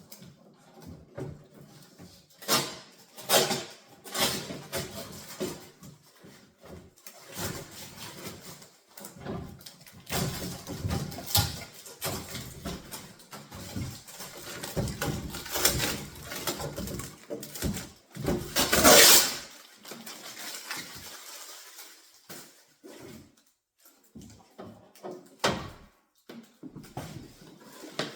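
Packaging and parts of a new refrigerator being handled during unpacking: irregular knocks, rustles and scrapes, with one loud noise lasting about a second roughly two-thirds of the way through.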